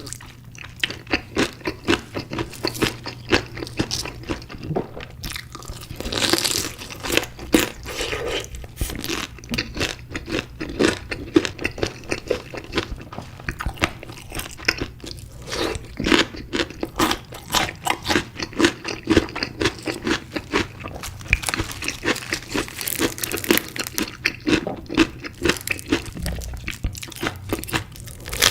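Close-miked crunching and chewing of crispy chicken pieces: a dense run of crisp crackles, with louder bursts of crunching twice along the way.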